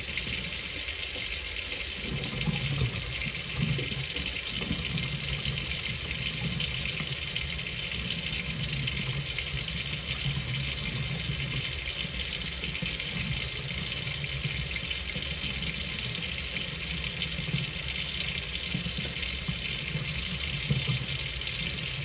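Faucet water running steadily into a stainless steel kitchen sink and pouring down through an open basket strainer drain, which is draining freely.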